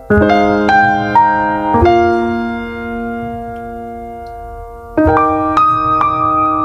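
Background music: electric piano playing slow, sustained notes, one group of notes struck at the start and another about five seconds in, each left ringing.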